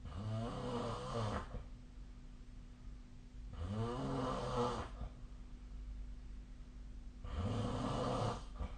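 A sleeping person snoring: three drawn-out snores about three and a half seconds apart, each lasting just over a second, with a wavering pitch. A low steady hum runs underneath.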